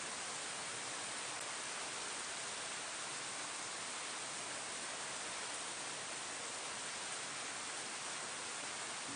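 Steady, even rain falling on leaves: a dense, unbroken hiss of rain.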